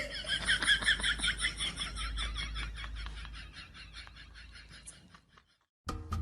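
An animal's rapid, pulsing call, several pulses a second, fading away over about five seconds.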